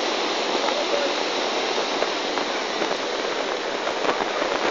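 A stream in flash flood: muddy, debris-laden floodwater rushing through a gully, a steady, unbroken noise of turbulent water.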